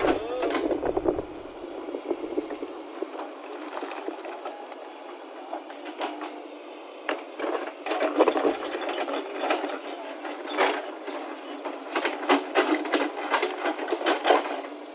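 JCB backhoe loader working: its engine runs steadily while the backhoe bucket scrapes and breaks up slabs of old asphalt road surface, with bursts of knocking and clattering debris from about six seconds in.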